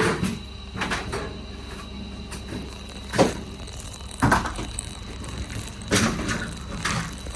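Handling noises while unpacking a new refrigerator: about six irregular knocks and scrapes, each with a short rustle.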